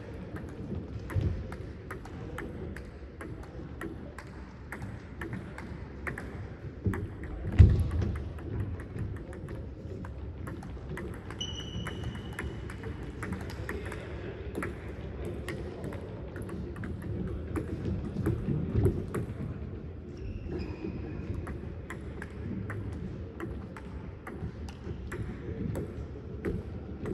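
Table tennis balls clicking off paddles and the table in rallies, several clicks a second over a steady background hum. Two brief high squeaks, and one louder thud about eight seconds in.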